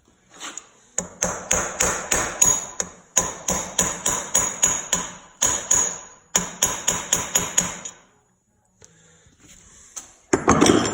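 Hammer tapping on the steel end cap of a hydraulic cylinder in quick runs of ringing metal-on-metal strikes, about four or five a second, with short pauses between runs, driving the cap back into the barrel to free its internal snap ring. A louder clatter comes near the end.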